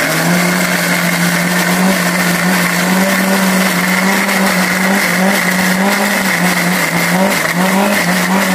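Small electric blender running steadily, grinding chilies, shallots, garlic and coriander seed in vegetable oil into a spice paste in its glass jar. The motor hum wavers slightly in pitch as the load shifts.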